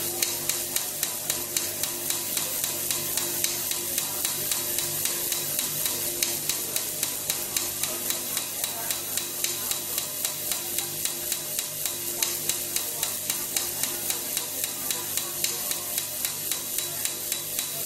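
Live electronic noise music from a laptop and controller through loudspeakers: a dense crackling hiss with a regular click pulse about three times a second, over a steady low hum and a mid-pitched tone that keeps switching on and off.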